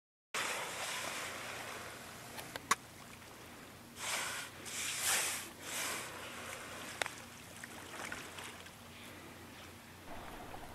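Water lapping and sloshing around a kayak on calm sea, with two sharp knocks and three short louder surges of noise a little past the middle.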